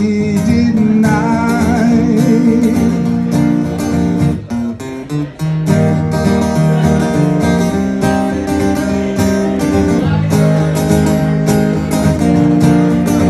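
Acoustic guitar strumming chords in an instrumental break of a live song, after a sung note held with vibrato in the first couple of seconds. The playing briefly drops away about four and a half seconds in, then picks up again with steady strummed chords.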